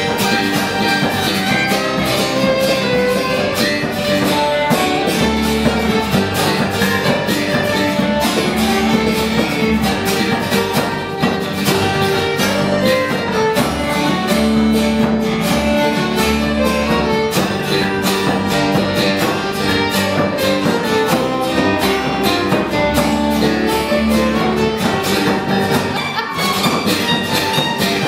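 A small folk string band plays a Ukrainian instrumental march live. The fiddle carries the tune over strummed acoustic guitar and other plucked strings, and a hand-held frame drum keeps a steady beat.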